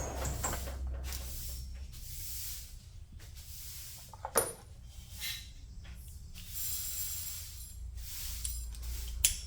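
Steel socket extensions and ratchet being handled and clicked together, with rustling handling noise and two sharp metallic clinks, one about halfway and one near the end.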